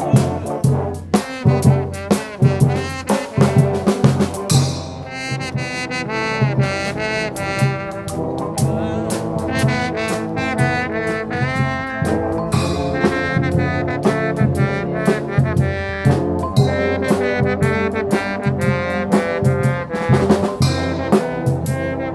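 A trombone ensemble playing a tune together over percussion. Drum strikes dominate the first few seconds, and then the horns carry on with held notes.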